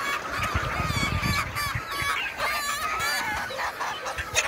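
A flock of chickens and gamefowl roosters calling over one another, many short overlapping squawks and calls, with one sharp knock near the end.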